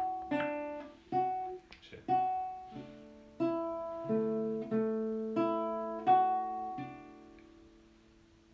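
Acoustic guitar playing a slow run of picked chords, about one every 0.7 s, the last one left to ring and fade out near the end.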